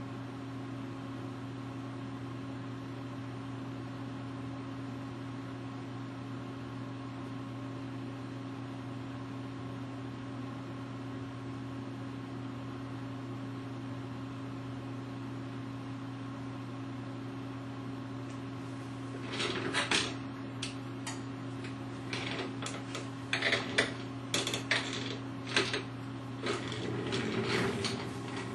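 Steady low mechanical hum of running equipment. About two-thirds of the way through, a run of irregular clicks and knocks starts over it and keeps going to the end.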